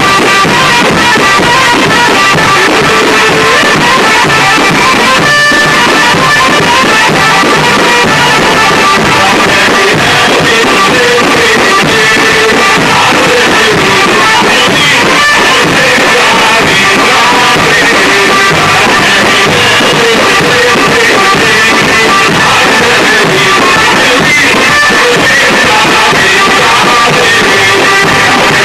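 Loud, continuous Egyptian bambouty folk dance music playing for a troupe's dance.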